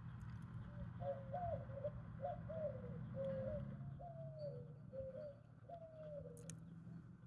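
A dove cooing: a run of short, rising-and-falling notes repeated about every half second for roughly five seconds, over a low steady rumble. A single sharp click comes near the end.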